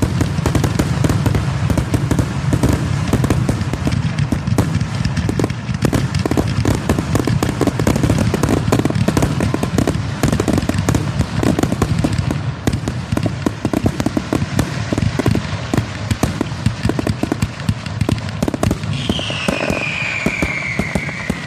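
Fireworks finale: a dense, continuous barrage of rapid bangs and crackles, thinning a little past halfway. Near the end a falling whistle sounds over the last bangs.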